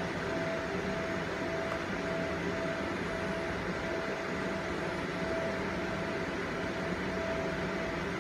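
Steady mechanical hum and fan-like noise, with a faint tone pulsing about twice a second.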